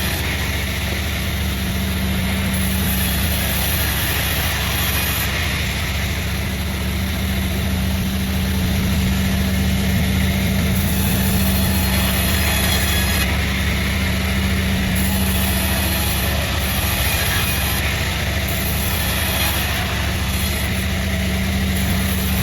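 Sawmill machinery running steadily: a constant low mechanical hum with a steady drone and a hiss above it.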